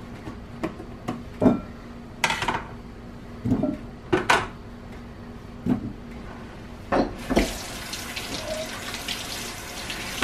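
A knife chopping chayote on a cutting board, with irregular sharp knocks. About seven seconds in, a kitchen tap starts running steadily into the sink as plantains are rinsed under it.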